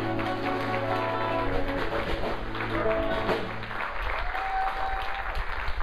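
A small band of electric and acoustic guitars, upright bass and drums rings out its final chord, which fades away about four seconds in, while the audience breaks into applause that carries on after the music stops.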